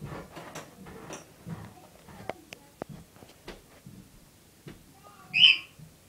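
A cockatiel gives one short, loud, high call about five seconds in. Before it come scattered light clicks and soft sounds.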